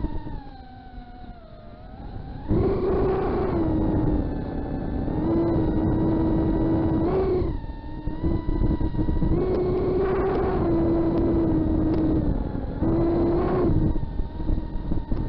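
FPV racing quadcopter's brushless motors and propellers whining, with a rush of air. The quad is quieter at low throttle for the first couple of seconds, then the throttle is punched so that the pitch and loudness jump about two and a half seconds in, and again it surges briefly three more times.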